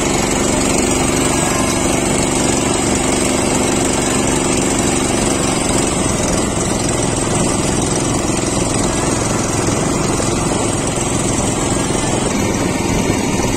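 Small boat engine running steadily while the boat crosses choppy river water, its hum clearest in the first half.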